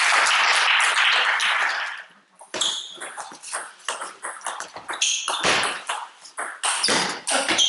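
Applause for about two seconds at the end of a game, then a table tennis rally: the ball clicking sharply off the bats and the table in quick succession.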